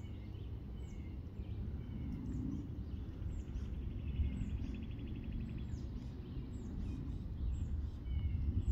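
Outdoor ambience with a steady low background noise and small birds giving short, high, repeated chirps. About three seconds in, a fast trill runs for a couple of seconds.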